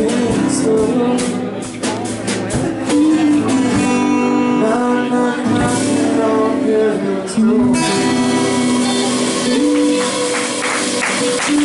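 Live band playing: acoustic guitar, electric guitar and drums with cymbal hits, a steady full mix throughout.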